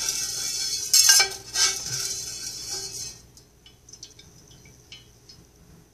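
Metal spoon scraping and clinking in a metal pan while scooping up the last loose lead shot pellets. The clatter stops about three seconds in, leaving a few faint clicks.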